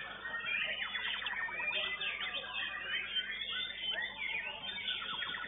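Caged songbirds singing at once in rapid, varied whistles and trills.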